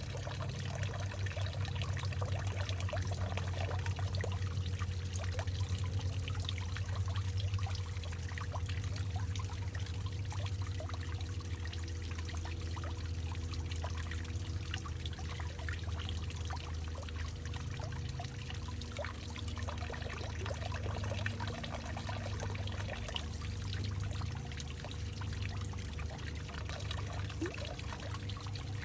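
Water trickling and pouring into a hollowed-out tree trunk, full of small splashes and drips over a steady low hum.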